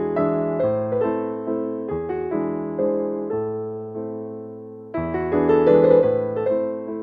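Background instrumental music on piano: a gentle melody of struck, fading notes over held bass notes, with a louder phrase coming in about five seconds in.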